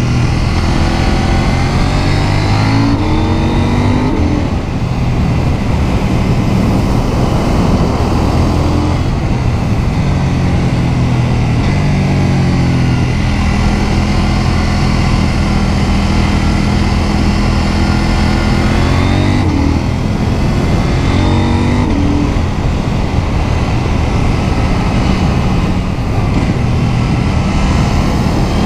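KTM 790 Duke's parallel-twin engine heard on board while riding. The engine note rises and falls repeatedly as the rider accelerates, rolls off and shifts down from sixth to third gear.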